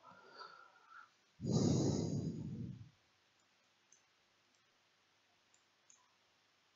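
A loud puff of noise close on the microphone, lasting about a second and a half, comes about a second and a half in. It is followed by a few faint, spaced clicks of a marker on the writing board.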